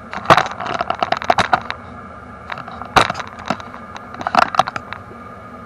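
Quick runs of small clicks and rattles, with a few sharp single knocks, as a replacement brake light switch is handled and threaded into its mount by hand.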